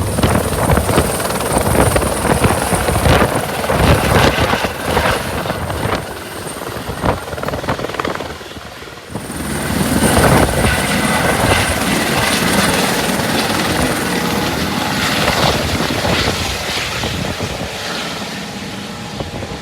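Helicopter running, a loud, dense rotor and engine noise with uneven gusty fluctuations that dips briefly about eight to nine seconds in, then returns.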